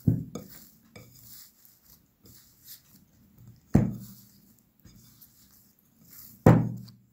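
Hands punching down and kneading risen yeast dough in a glass bowl to knock the gas out of it: faint soft handling noises, with three sharp knocks on the glass bowl, one near the start, one about four seconds in and one near the end.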